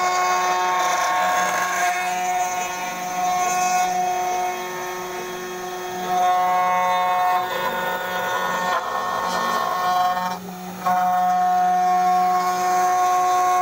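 A 500 W CNC router spindle with a 3 mm end mill milling through a coconut half-shell: a steady machine whine over rough cutting noise. It gets louder about six seconds in and dips briefly near ten seconds.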